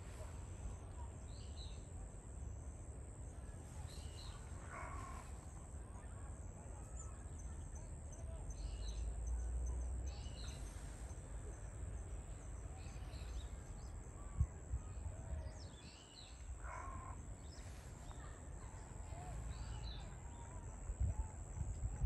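Japanese tit (Parus minor) giving short high calls scattered through the tree canopy, with two harsher, lower bird calls about five and seventeen seconds in.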